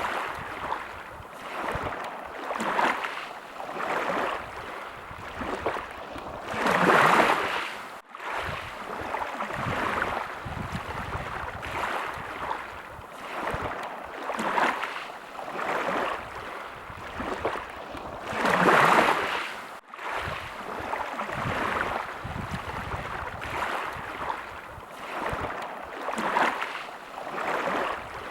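Small waves lapping at the water's edge, swelling and falling back every second or two, with two larger splashes about seven and nineteen seconds in. The sound cuts out for an instant twice, just after each larger splash.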